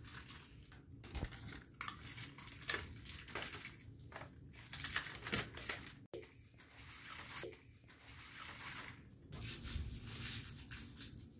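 Cardboard treat advent calendars being nosed and scraped at by a greyhound and a cat: irregular scratchy rustling and crinkling.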